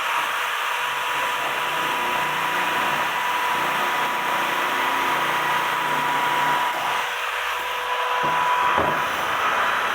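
Handheld electric power tool cutting sheet metal: a steady motor whine over a harsh cutting noise.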